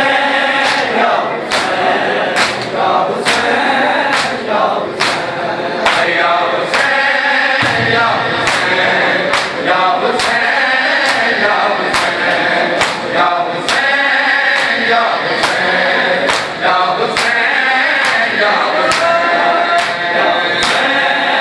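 Male voices chant a Shia noha (mourning lament) together, over the steady rhythm of many open hands slapping bare chests in matam, with sharp slaps at an even beat throughout.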